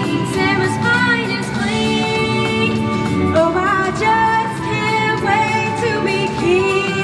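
A song playing: a singing voice carrying a melody over full instrumental backing, at a steady loud level.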